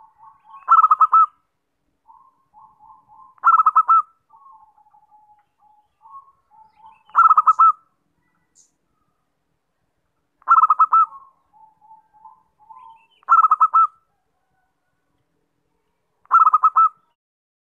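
Zebra dove (perkutut) singing its staccato cooing song: six loud trilled phrases, each under a second and about three seconds apart, with softer stuttering coos between them. This is a lure call (pikat) used to draw in wild zebra doves.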